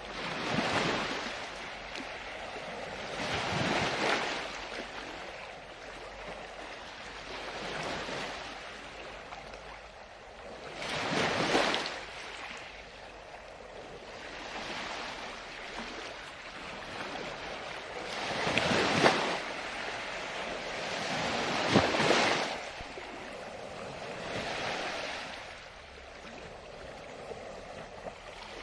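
Ocean waves breaking and washing up the shore, the surf swelling and falling back about every three to four seconds, with the two strongest breakers about two-thirds of the way through.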